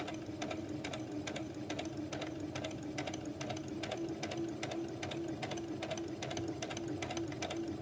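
Brother sewing machine running a long straight stitch, set at stitch length four, through layers of tulle. It makes a steady motor hum with a rapid, even ticking of the needle, sewing a gathering line down the middle of the strips.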